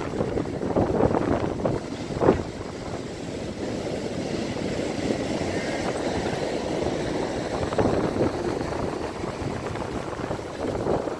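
Ocean surf breaking and washing up the shore, under heavy wind rumbling on the microphone that gusts strongest about two seconds in.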